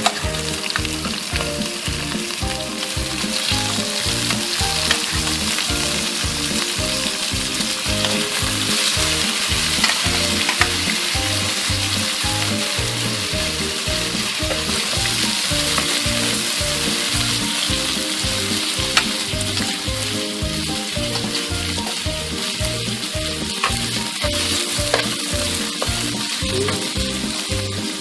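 Shrimp and squid sizzling as they are stir-fried in a wok, with a metal ladle now and then scraping and clicking against the pan. Background music with a steady beat runs underneath.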